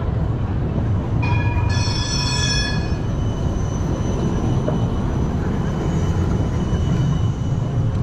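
GVB Combino tram rolling past with a steady low rumble; about a second in, its wheels squeal on the rails in several high tones at once for about two seconds, then fade.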